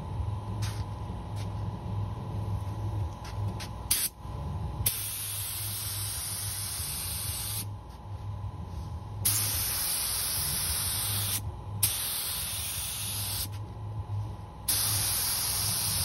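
Air-fed gravity-feed spray gun hissing as it sprays epoxy primer, in four bursts of two to three seconds each, the first about five seconds in, with short pauses between trigger pulls. A low steady hum runs underneath.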